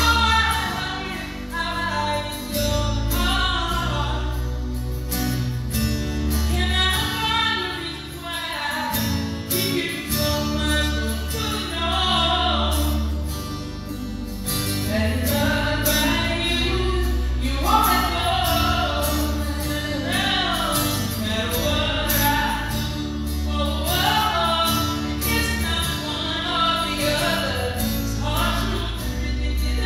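Live worship song: women's voices singing the melody over acoustic guitar and keyboard, with sustained low notes underneath.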